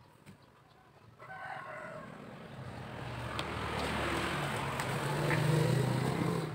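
A rooster crows about a second in. A low motor sound then swells for several seconds, loudest near the end.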